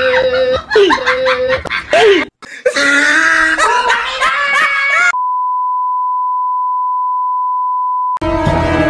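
A single steady test-tone beep, the tone played over TV colour bars, held for about three seconds from about five seconds in and cut off abruptly.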